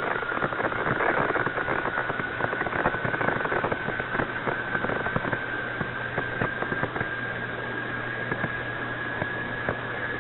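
Open air-to-ground radio channel between transmissions: steady static hiss with dense crackling clicks, a thin whistle tone that slowly rises in pitch, and a low hum underneath.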